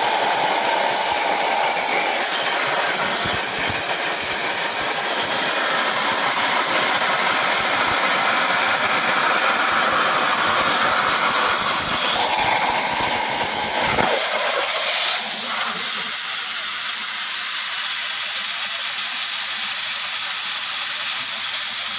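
CNC plasma cutter torch cutting 1/4-inch steel plate, a steady loud hiss with a rough roar under it. About fourteen seconds in the low roar cuts off, leaving a thinner, higher hiss.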